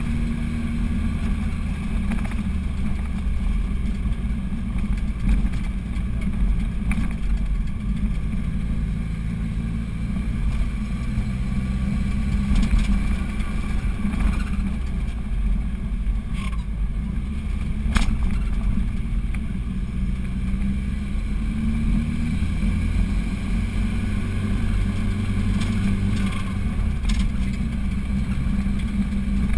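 Car engine running steadily under load as the vehicle climbs a steep mountain road, heard from inside the cab. The engine note shifts about two-thirds of the way through, and there are a few short, sharp knocks, the loudest just past the middle.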